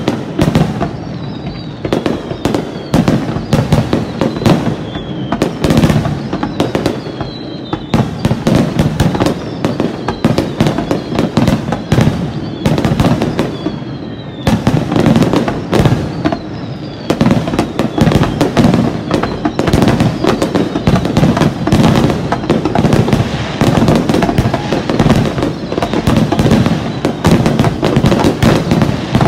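Dense barrage of aerial firework shells bursting in rapid, overlapping succession, the rapid-fire climax of a large display. Short falling whistles repeat among the bangs through roughly the first half.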